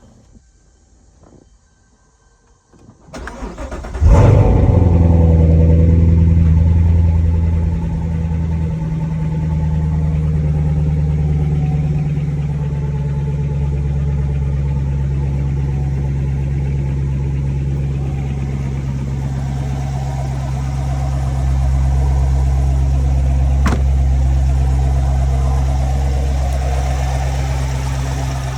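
Chevrolet C7 Corvette's 6.2-litre V8 cranked by a newly replaced starter, catching after about a second, flaring loudly, then settling into a steady idle. The no-crank fault is cured by the new starter.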